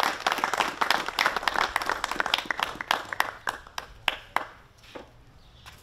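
Applause from a small group, separate hand claps heard individually, thinning out and dying away about four and a half seconds in, with a last clap or two near the end.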